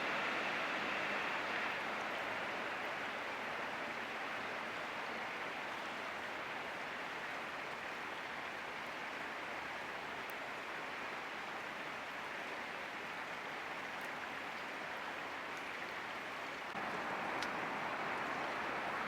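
Steady rush of flowing stream water, an even hiss with no other events. It steps up in loudness near the end.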